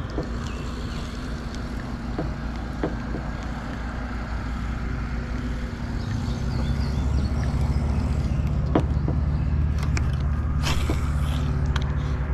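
Low, steady engine hum that grows louder about halfway through, with a few light knocks.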